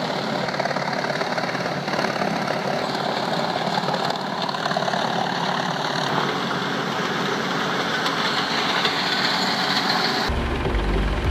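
Eschlböck Biber 92 wood chipper running and chipping wood, a steady dense mechanical grinding. Near the end it cuts abruptly to a deeper, rumbling machine sound.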